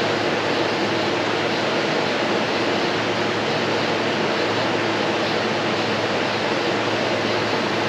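Window air conditioner running: a steady rush of air from its fan over a low compressor hum. The compressor is drawing in R-134a refrigerant from a can, and the unit is cooling.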